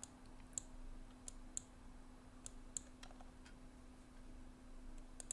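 Faint, irregular computer mouse clicks, about eight short sharp ones, over a low steady hum.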